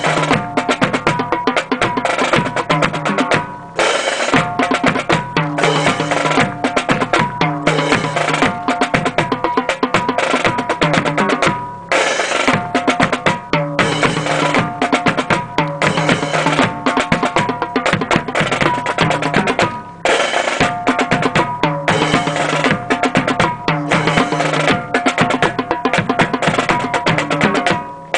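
Drum-led music with snare drum rolls and bass drum over held pitched tones, playing in phrases about eight seconds long with a brief break between each.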